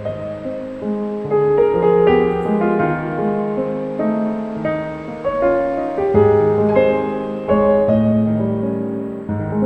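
Piano music, with notes struck one after another and left ringing into each other.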